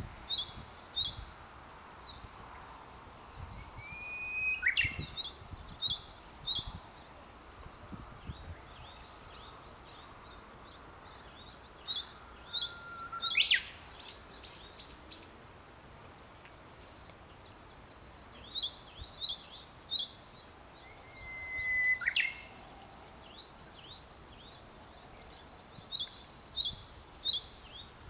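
Japanese bush warbler (uguisu) singing its 'hoo-hokekyo' song three times, about nine seconds apart: each phrase is a held whistle breaking into a quick, sharp flourish. Between the phrases, other small birds give runs of quick, high chirps over the steady murmur of a stream.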